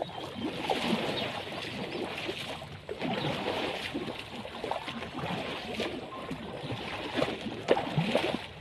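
Water splashing and churning as long poles are pulled through it like oars beside a log raft, a steady wash of splashes.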